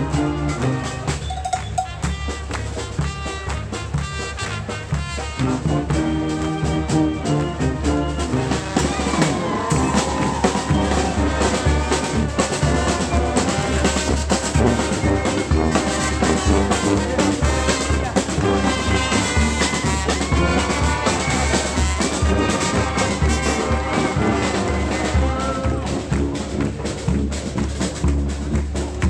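Street brass band playing: horns over steady drums. Short, punchy horn chords at the start give way to fuller, continuous playing about eight seconds in.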